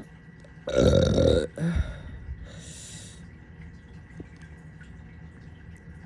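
A person's loud burp about a second in, lasting under a second, with a short second gulp just after it. A faint, airy hiss follows about a second later.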